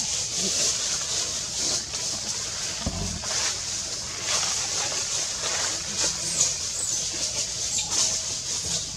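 Steady high-pitched buzz of forest insects, with a dull low thump about three seconds in.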